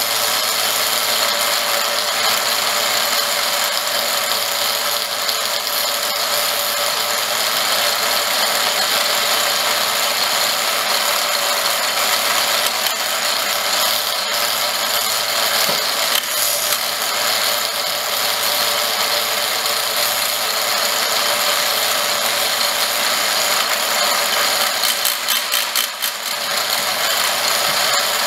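Horizontal milling machine running steadily, its arbor-mounted cutter milling a keyway in a shaft. The sound turns uneven and choppy near the end.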